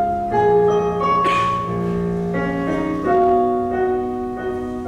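Piano accompaniment to a slow musical-theatre ballad, playing sustained chords with a gentle melody line between sung phrases, the notes changing about once a second.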